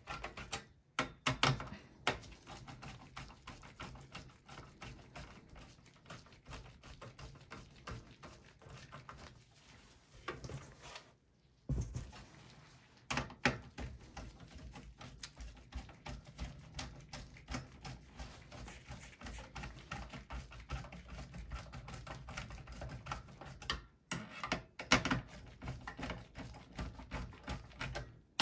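Screwdriver turning out the screws of a CPU cooler heatsink in a small desktop PC's metal case: fast light clicking and scraping of the bit in the screw heads, with a few louder knocks against the case.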